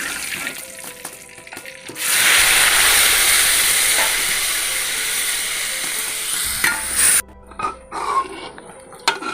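Meat frying in hot oil in a pan, a loud steady sizzle that starts suddenly about two seconds in and is stirred with a spatula. The sizzle cuts off abruptly near the end, followed by a few light clanks of utensil on pan.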